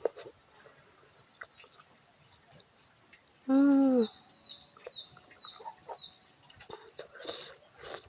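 A single loud, pitched animal call lasting about half a second, rising and then falling, about halfway through. It is followed at once by a bird's quick run of about six short, high, falling chirps. A couple of brief soft noises come near the end.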